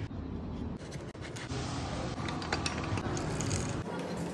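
Scratchy rubbing with faint, irregular clicks as gloved hands work parts on a road bike, such as threading a bottom bracket cup into the frame.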